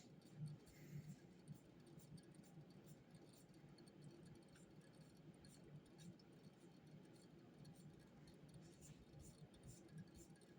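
Near silence: quiet room tone with a faint low hum and scattered faint light clicks and ticks.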